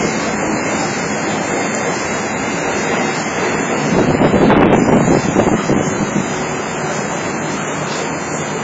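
Shin-Keisei 8000 series electric train running between stations, heard from inside the passenger car as a steady rumble of wheels and running gear that swells briefly about four seconds in.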